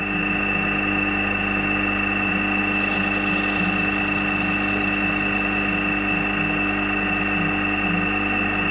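Drilling machine motor running steadily with an even whine, drilling with a flat-bottomed bit ground down from an old twist drill so the holes do not go all the way through.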